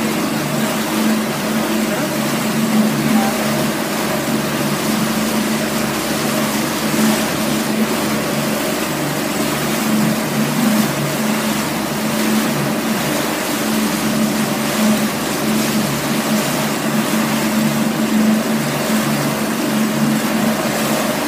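Tohatsu outboard motor running steadily as it pushes the boat along at speed, with the rush of churning water from the wake.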